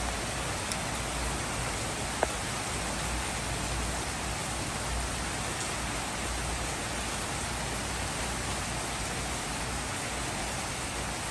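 Heavy rain pouring steadily onto paving, roofs and leaves, an even hiss with no change. A single sharp tick about two seconds in.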